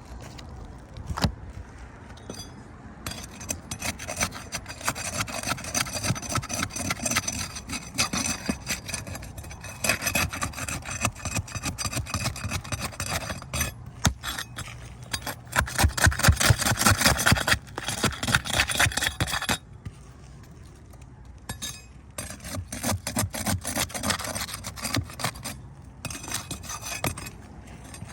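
Shingles being scraped and pried off wooden roof decking in rapid rasping strokes. The sound comes in two spells: a long one that is loudest just before it stops about twenty seconds in, and a shorter one a few seconds later.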